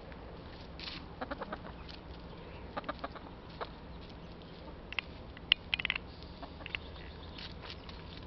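Hens clucking now and then as they forage, in short scattered clucks, with a quick run of them about a second in and another cluster around the six-second mark.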